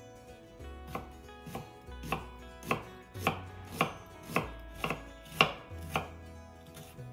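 Kitchen knife slicing half an onion on a bamboo cutting board: about ten even cuts, roughly two a second, each ending in a knock of the blade on the wood.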